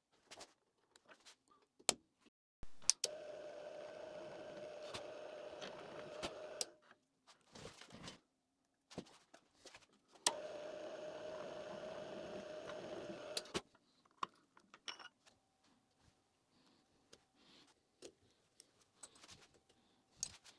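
Drill press running twice with a steady hum, first for about four seconds and then for about three, while shallow detent divots are drilled into a gearbox shifter shaft. Light clicks and knocks of handling the parts come before and between the runs.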